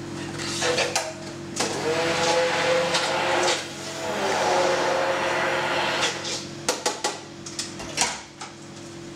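An electric blender runs for about six seconds, its motor pitch wavering, re-mixing gazpacho that has separated. It stops, followed by a few sharp clicks and knocks, with a steady low hum underneath throughout.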